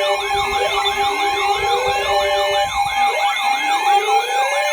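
Several electronic alert sirens wailing at once, their pitches sweeping up and down about twice a second and overlapping, over a steady alarm tone; a lower pulsing tone drops out about halfway. They are going off for a tornado warning.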